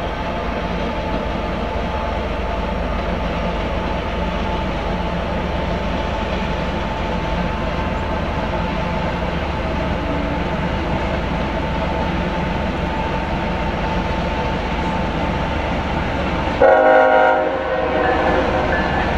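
Diesel freight locomotives running past under load, a steady engine drone. About 17 s in, a locomotive horn sounds in a short loud blast.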